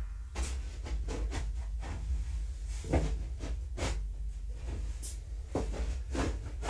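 Irregular soft knocks and rubbing, with a few louder thumps among them, from things being handled and moved close by.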